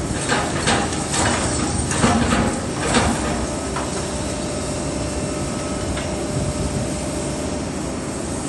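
Takeuchi excavator running at a demolition site, with clanking and knocking of concrete and metal over the first three seconds or so, then a steady mechanical rumble.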